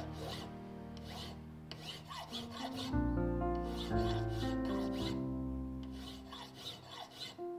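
Hand file rasping in repeated back-and-forth strokes across brass plates clamped in a vise, over background music with sustained notes.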